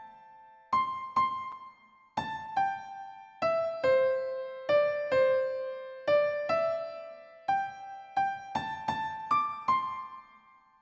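A slow melody played one note at a time on a keyboard with a piano-like tone, each note struck and left to ring away; the last note fades out near the end.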